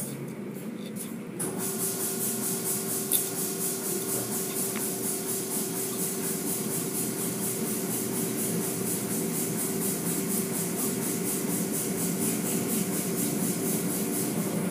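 Automatic car wash: water and foam spraying with a hiss that starts suddenly about a second and a half in and pulses evenly, over the steady hum of the wash machinery.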